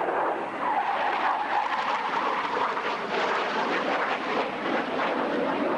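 Swing-wing military jet flying a display pass, its engines a steady loud roar with a whine that slowly drops in pitch.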